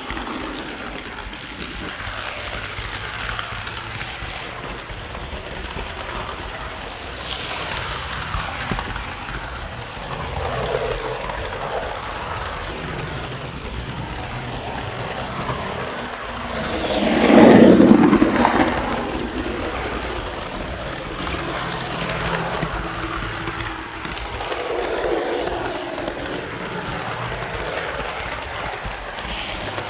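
Model train rolling along its track, heard from aboard one of its cars: a steady rumble and rattle of wheels on rails, swelling to its loudest about seventeen seconds in and then easing back.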